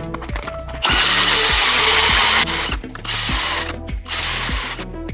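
Cordless-drill-driven ice auger spinning and cutting through lake ice in long bursts, with short pauses between them. Background music with a steady beat plays underneath.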